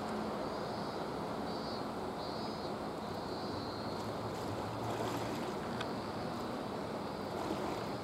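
Steady harbour ambience: an even noise with a faint low hum, as from moored ships' machinery, and wind on the microphone.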